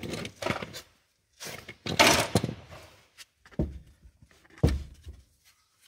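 Hand-tool handling noises in an engine bay: a short clattering rattle about two seconds in, then two dull thunks.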